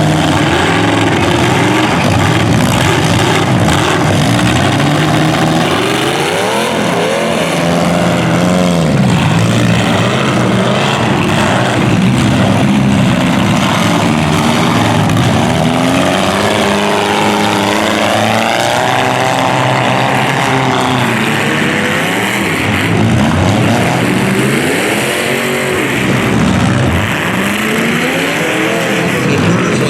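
Several demolition derby car engines running hard and revving, their pitch rising and falling again and again in an overlapping loud din.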